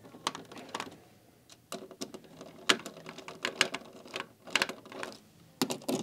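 Irregular sharp clicks and knocks of a plastic filter-head bracket and a Phillips screwdriver against the back of a Keurig coffee brewer as the bracket is hung on its mounting screws.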